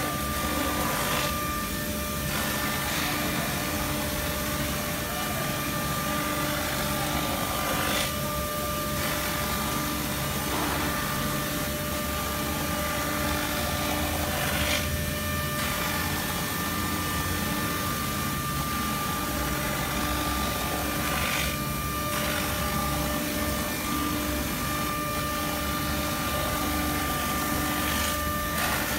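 CNC router spindle running with a steady high whine and hum while its cutter mills a white foam block, with a few brief louder rasps as the tool bites in.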